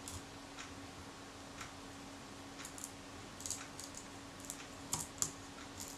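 Faint small clicks and crackles of leatherette being peeled off the metal baseplate of a Kodak Retina IIIc camera, coming more often in the second half.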